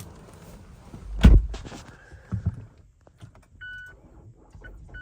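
A heavy thump, then a few lighter knocks and clicks inside a 2019 Mazda CX-5, followed by the car's short electronic warning chimes beeping as its electrics come alive on power from a portable jump pack.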